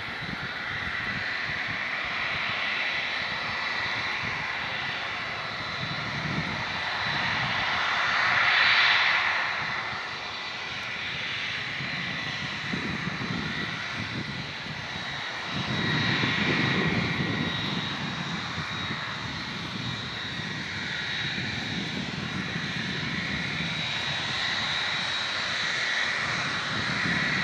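Boeing 757's twin jet engines running at low taxi power as the airliner rolls slowly toward the listener: a steady high whine that swells about eight seconds in, with a deeper rumble building over the second half.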